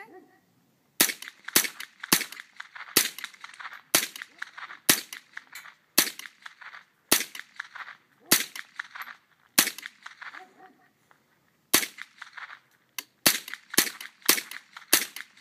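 Semi-automatic AR-15 rifle firing .22 LR rounds: a string of sharp single shots, roughly one every half second to a second. There is a gap of about two seconds two-thirds of the way through, then the shots come quicker.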